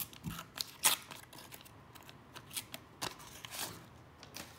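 Foil wrapper of a 1989 Upper Deck baseball card pack crinkling and the freshly opened cards being handled, in a run of sharp crackles and clicks, the loudest about a second in.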